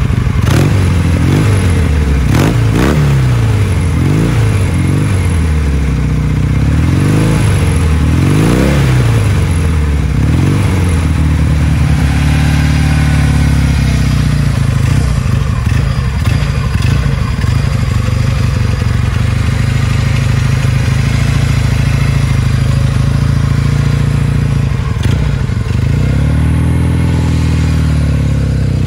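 1962 Norton 650SS parallel-twin engine blipped repeatedly, the revs rising and falling again and again, then idling steadily. Near the end it dips and picks up again as the bike pulls away under way.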